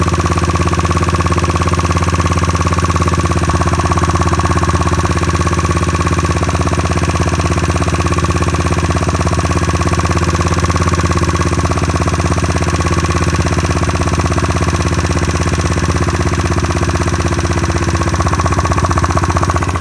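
Dong Fang DF SRT 50cc scooter's single-cylinder four-stroke GY6 engine idling fast and steady at about 2,000 rpm while its carburetor idle is being tuned.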